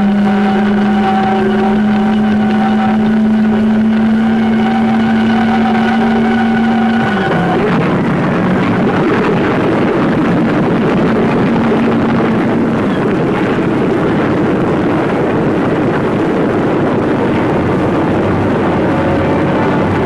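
B-17 Flying Fortress engine start: a steady whine for about seven seconds that drops in pitch, after which the radial engine catches and runs as a dense, rough engine noise.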